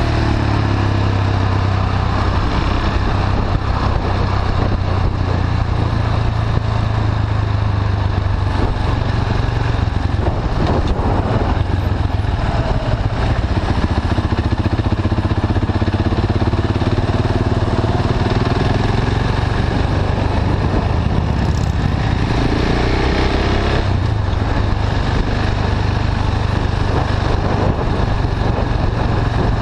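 KTM 690 Duke's single-cylinder engine running at low revs through an Akrapovic slip-on exhaust with the catalytic converter bypassed, heard from on the bike in slow traffic. The revs rise and fall around the middle and again a little past two-thirds in.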